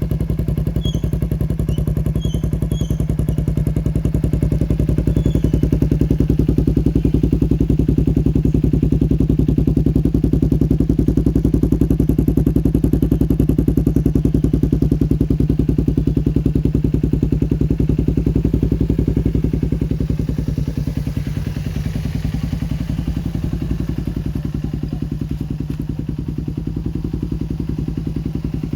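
Kawasaki Ninja 250R parallel-twin engine idling through an aftermarket Akrapovic-style slip-on silencer, a steady, even exhaust pulse. It settles a little quieter about two-thirds of the way through.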